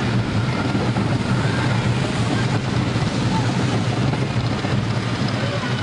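Mine train roller coaster running along its track, a steady rumbling noise heard from on board the moving train.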